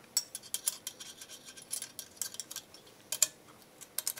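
Irregular sharp metal clicks and clinks of combination wrenches on a motor hold-down bolt and nut as the bolt is loosened, one foot at a time, to check that foot for soft foot.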